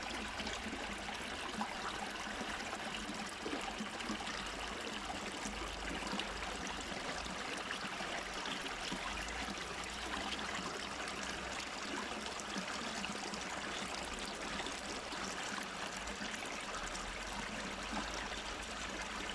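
Water running and trickling steadily, with small splashes.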